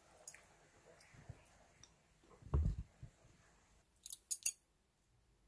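Quiet utensil sounds: a dull bump about halfway through, then three quick light clicks near the end from metal chopsticks and spoon against each other and the dish.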